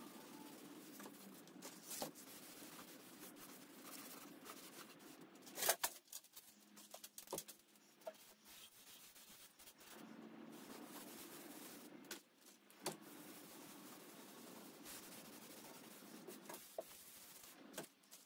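Cloth rag wiping finish onto a wooden chest top: soft rubbing and rustling, with a few light knocks and clicks, the loudest about six seconds in, over a low steady hum.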